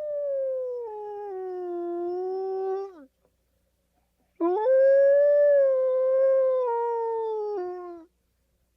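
Wolf howling: two long, clear howls. The first is already sounding and slides down in pitch before breaking off about three seconds in. After a short pause, the second swoops up, holds steady, then falls away at the end.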